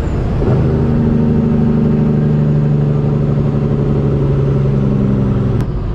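An engine running loud and steady at a fixed pitch, cutting off sharply near the end.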